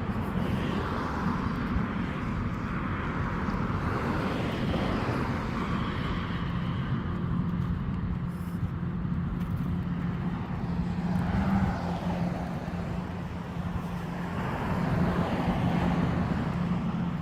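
Traffic on a busy street: vehicles passing in a continuous wash of road noise that swells and fades. A steady low engine hum joins about six seconds in and holds.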